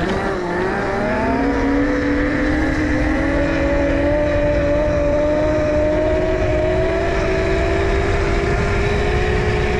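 A 72-volt, 5000-watt electric pit bike's motor whining under sustained acceleration, its pitch climbing slowly and steadily as speed builds, over a heavy rush of wind and road noise.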